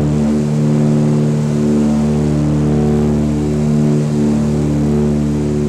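The twin piston engines and propellers of a Britten-Norman Islander drone steadily, heard from inside the cockpit. The upper part of the drone wavers slowly and regularly.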